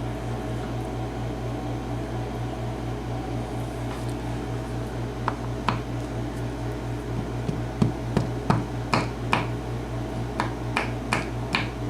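Small metal lock parts clicking and clinking as the key pins are tipped out of the cylinder plug onto a hard surface: a few sharp clicks from about five seconds in, coming more often near the end, over a steady low hum.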